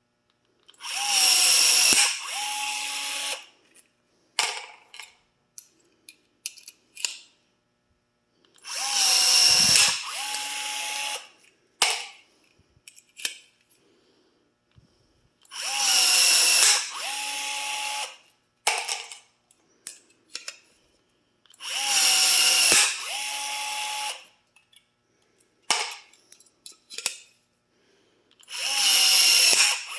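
Milwaukee M12 cordless rivet gun setting rivets one after another: five cycles, each a loud motor whir of about a second followed by a quieter whir of about a second. Light clicks and taps fall between the cycles.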